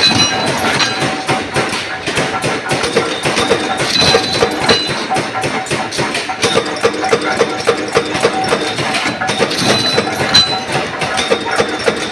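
A mechanical press stamping washers out of black steel plate: repeated metallic knocks over the steady running of the machine.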